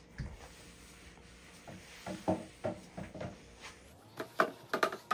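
Light clicks, knocks and rubbing from a clear plastic storage bin being handled on a granite kitchen counter during cleanup, a few at first and then a quicker run of knocks in the second half.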